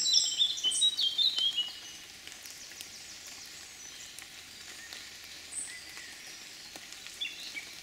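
A small songbird singing quick, high chirping phrases for about the first two seconds, then stopping. After that there is only a faint, steady hiss of light rain in woodland, with a few soft drips.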